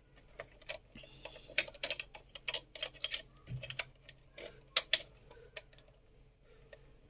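Irregular sharp clicks and taps of a CPU cooler's retention clips and frame being handled as the cooler is seated on the processor, with one duller knock about three and a half seconds in.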